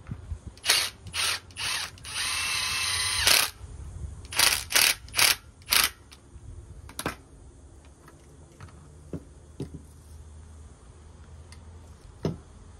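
Cordless drill-driver spinning in short bursts on the fasteners of an air-conditioner indoor fan motor: three quick runs, a longer whining run about two seconds in, then four more quick runs, as screws are driven out. Afterwards a few light clicks of metal parts and a knock near the end as the drill and parts are set down.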